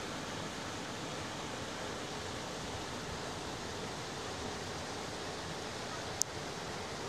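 Creek running high after rain, a steady rush of water over rocks. A single sharp click about six seconds in.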